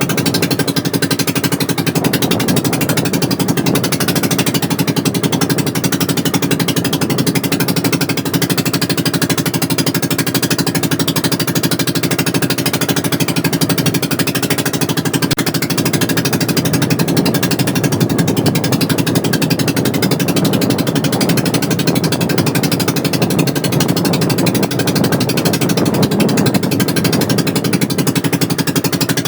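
Small boat engine running steadily at a constant speed, with a rapid, even beat.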